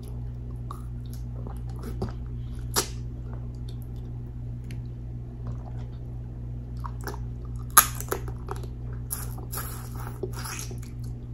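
Close-miked eating sounds: chewing, biting and wet squishy smacks of saucy seafood boil eaten with the fingers, with a few sharp clicks, the loudest just under 8 s in. A steady low hum runs underneath.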